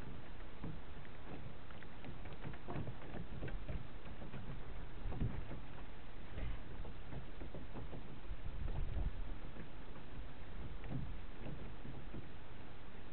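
Lake water lapping and slapping irregularly against the hull of a small 1960s Alcort Sunfish sailboat under way, over a steady low rush.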